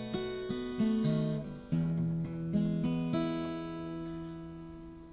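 Acoustic guitar playing the closing notes of the song: a few picked notes and chord changes, then a final chord left ringing and fading out.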